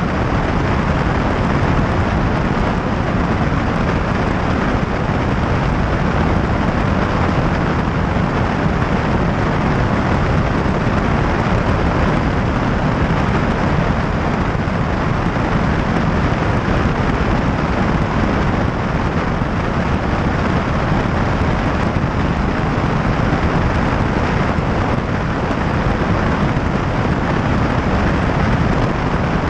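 Steady, even noise of a single-engine light airplane in flight, with engine drone and airflow over the microphone blended into one loud, unbroken rush.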